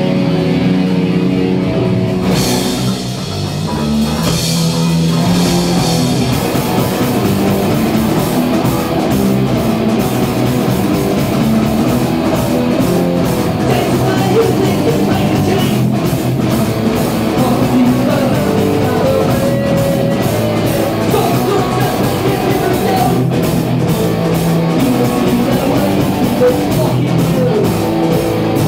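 Rock band playing live and loud: electric guitars through amplifiers over a pounding drum kit, with a brief dip in level about three seconds in.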